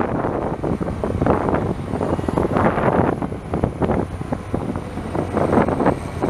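Case 2670 tractor's 8.3 L six-cylinder turbo diesel running, its level surging unevenly, with wind buffeting the microphone.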